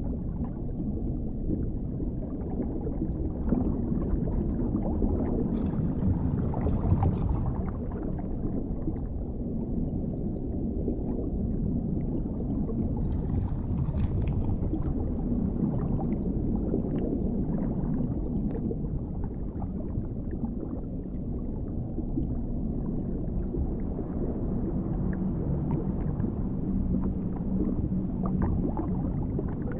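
Dark underwater ambience: a deep, muffled rumble of water that swells and eases slowly, with faint scattered clicks over it.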